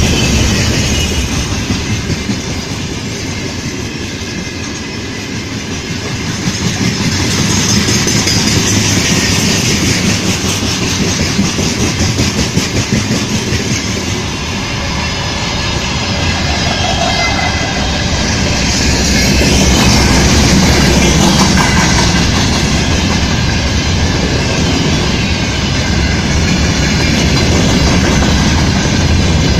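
Freight train wagons rolling past: the steady rumble of steel wheels on the rails with a continuous clatter as the wheelsets run over the rail joints.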